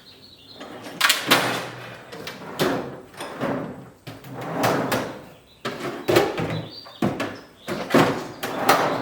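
Rummaging and handling noise: an irregular run of clunks, knocks and rustles as things are moved around.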